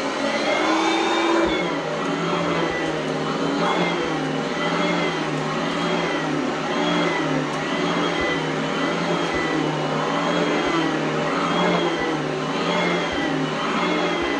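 Oreck Elevate Conquer upright vacuum cleaner running on carpet, its motor whine rising and falling in pitch about every one and a half seconds.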